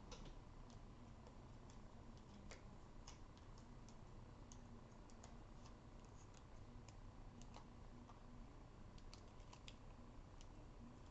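Faint, irregular small clicks and ticks of paper card pieces being handled while foam adhesive Dimensionals are put on a card sentiment.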